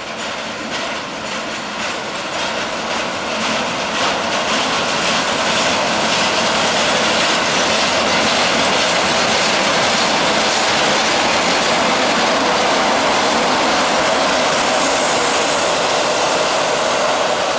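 ChME3 diesel shunting locomotive running as it moves a tank car past, its engine mixed with steel wheels rolling on the rails. The sound grows louder over the first few seconds, then stays steady.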